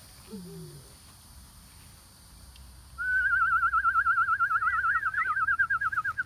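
A loud whistle that warbles rapidly up and down in pitch, about eight wobbles a second, starting about three seconds in.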